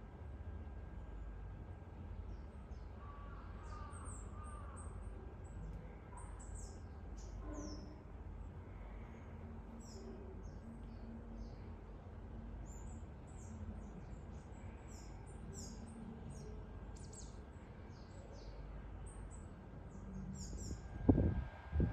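Small birds chirping: short, high, thin calls scattered throughout, over a steady low rumble. Two sharp thumps near the end are the loudest sounds.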